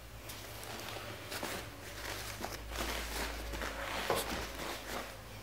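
Faint handling noise: soft rustles and a few light knocks as the ribbon-wrapped disposable-nappy wheels are held and turned in the hands, over a low steady hum.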